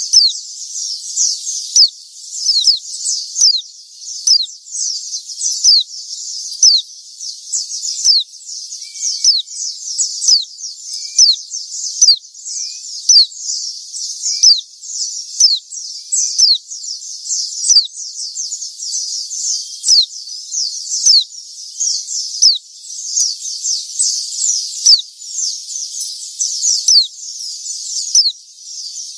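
White-eyes (pleci) singing nonstop: a dense stream of high, thin notes that sweep steeply downward, several a second.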